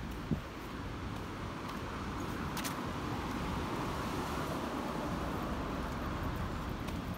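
Road traffic passing, a steady hiss of tyres that swells and fades around the middle. There is a short knock just after the start.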